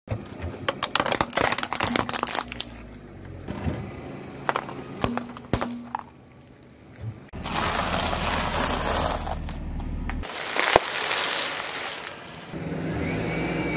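Objects being crushed under a slowly rolling car tyre. First comes a quick run of sharp plastic cracks and snaps as a hollow plastic basket gives way, then a few single cracks, then two longer stretches of crunching and crackling.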